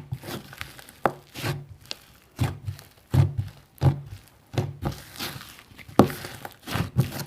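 Slime being handled by hand: irregular soft squishes and pops with dull thuds, about two a second.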